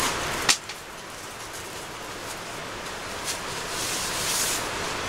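Rustling of nylon fabric, a down sleeping bag and clothing, as someone shifts about, with one sharp click about half a second in.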